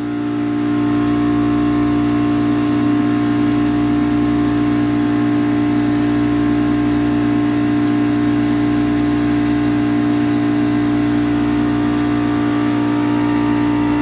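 Water chiller's refrigerant compressor running with a steady, even hum and a strong drone, the unit operating normally under load.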